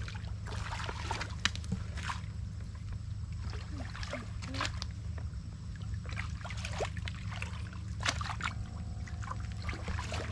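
Water splashing and sloshing in irregular strokes as a person wades through shin-deep muddy water, over a steady low rumble.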